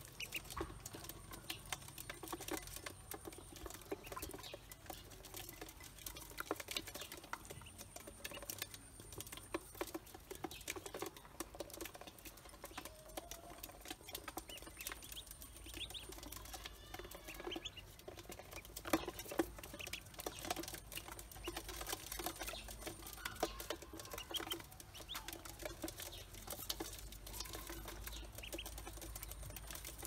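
Pekin ducklings pecking feed off the bottom of an aluminium basin: a rapid, irregular clatter of small bill taps on the metal, with a few faint peeps.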